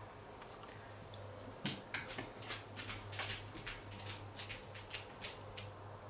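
Light, irregular clicks and taps, about a dozen over four seconds, as a thin stick-like painting tool is handled and worked into wet paint on the canvas. A steady low hum runs underneath.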